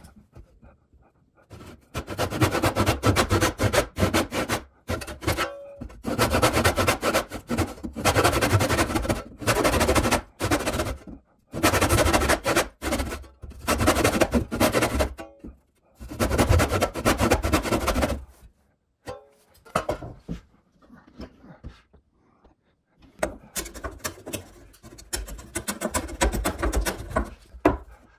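Handsaw cutting into a pine post in several runs of quick back-and-forth strokes, separated by short breaks. The cuts notch out a small shelf in the post. Quieter scraping and cutting sounds come between the runs near the end.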